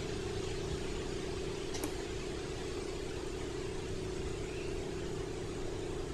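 Small 3/4-horsepower electric air compressor running steadily in the background, a constant hum, while it supplies air at low pressure into a leaking pool plumbing line. A single faint click about two seconds in.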